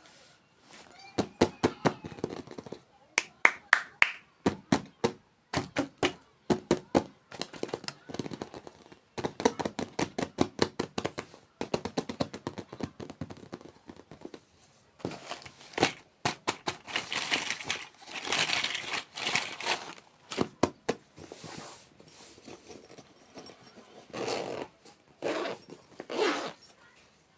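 Close-miked eating sounds: rapid crunching and chewing bites of desserts, coming in quick runs of crisp clicks with short pauses between them.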